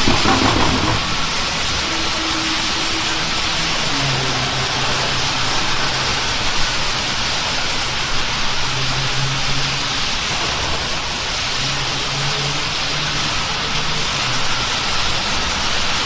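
A huge flock of birds wheeling over roost trees, their massed calls merging into a dense, steady hiss.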